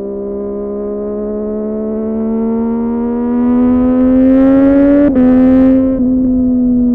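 Sportbike engine pulling hard, its note climbing steadily for about five seconds, then a short break and a drop in pitch as it shifts up, after which it holds a steady high note.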